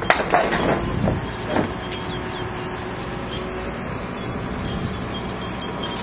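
Crane engine running steadily while a cut tree limb hangs from the hook, with a few short knocks in the first second and a half.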